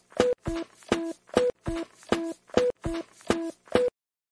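A looping electronic beat of short synth notes, about three a second, each starting with a sharp click and alternating between a lower note and a higher one. It cuts off abruptly shortly before the end.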